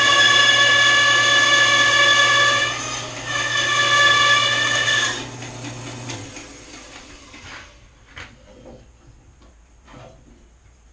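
WEN 10-inch benchtop bandsaw cutting a long pass through a soft camphor log, the blade running with a steady high whine over the motor's hum. The whine dips briefly about three seconds in and ends about five seconds in as the cut finishes. The motor is switched off about a second later, and a few light knocks follow as the wood is handled.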